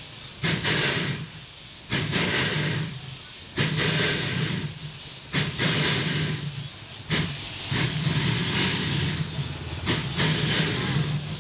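Narrow-gauge steam locomotive working slowly in heavy, drawn-out chuffs, about one every second and a half to two seconds, each with a loud hiss of steam.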